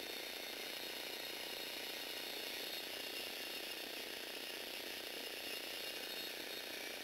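Electric motor driving the plastic gear train of a Lego Technic model's crane boom, a steady whirring and gear-meshing noise as the boom lifts.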